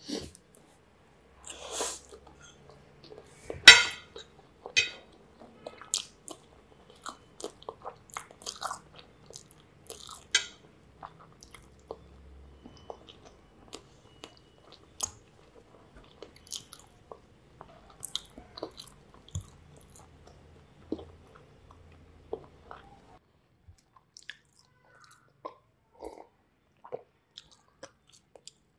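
A person chewing mouthfuls of spaghetti in meat sauce: a string of irregular wet clicks and smacks, the loudest about four seconds in.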